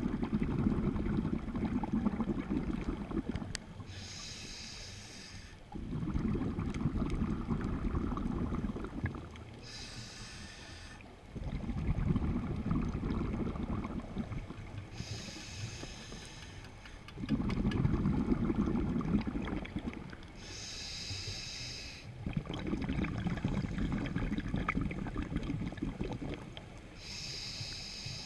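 Scuba diver breathing on a regulator underwater, five breaths: each a short hiss of the inhale through the demand valve, then a longer low rumble of exhaled bubbles, about every six seconds.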